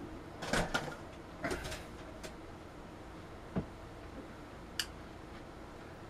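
A few brief knocks and clicks of something being handled and set down: a small cluster in the first two seconds, then single clicks spaced out over the rest, against quiet room hiss.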